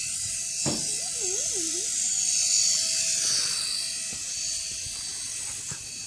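Small electric motors and rotor blades of a cheap toy RC helicopter whirring with a steady high-pitched buzz. There is a sharp click under a second in and a brief wavering warble soon after.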